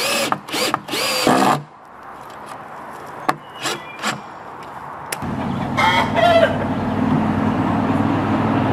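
Cordless drill driving a 3-inch screw into a 2x4 upright, in three short bursts at the start and a few brief ones about four seconds in. About five seconds in a steady low hum sets in and grows, with a short squawk-like call over it.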